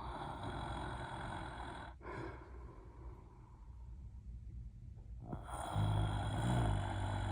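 A person snoring: a noisy breath about two seconds long, then after a quieter stretch a louder snore with a low buzz near the end.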